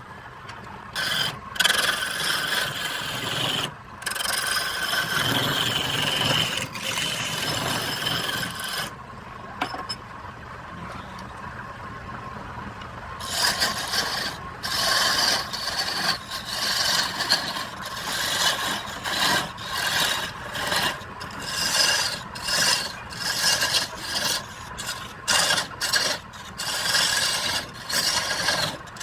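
Wood being scraped on a running wood lathe, with a faint steady motor whine underneath. The scraping is continuous at first, then comes as short repeated passes from about 13 seconds in.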